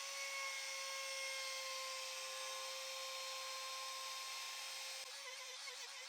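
Wood router with a 45-degree chamfer bit running at full speed, a steady high whine. About five seconds in the pitch starts to waver as the bit bites into the wood, beveling an edge.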